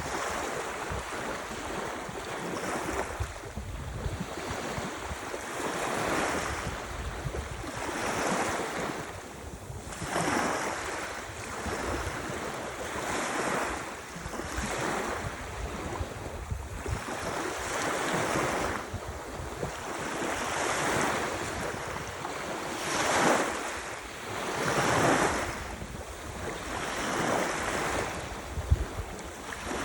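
Ocean surf: waves breaking and washing in one after another, swelling every two to three seconds, with wind rumbling on the microphone. A single sharp knock near the end.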